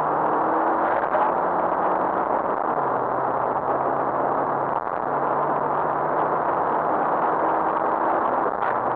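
Rally car's engine running hard inside the cabin under a loud rush of wind and road noise. The engine note drops for about two seconds in the middle and then climbs back, with a few knocks near the end.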